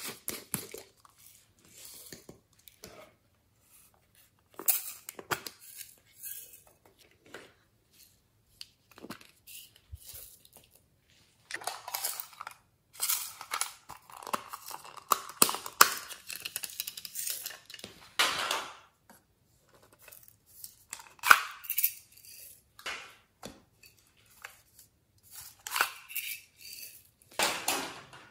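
Hands handling and opening small plastic and tin containers: scattered clicks, taps and scrapes with short pauses between them, a longer stretch of continuous scraping and rustling around the middle, and one sharp click a little after that.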